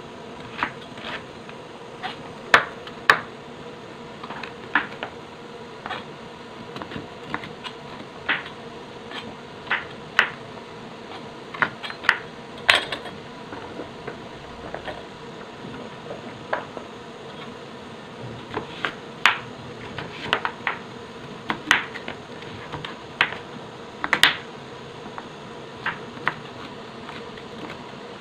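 Kitchen knife dicing a peeled sweet potato on a plastic cutting board: irregular sharp knocks of the blade striking the board, thinning out for a few seconds midway. A steady hum runs underneath.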